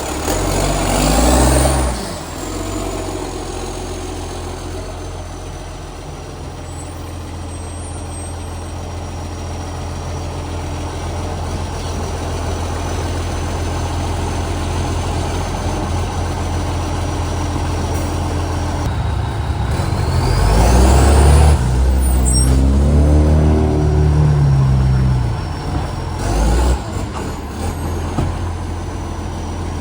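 Garbage truck's diesel engine running with a leaking exhaust pipe that makes it unusually loud. It settles into a steady hum, then revs up about two-thirds of the way in with a sharply rising whine, falls back, and surges briefly once more near the end.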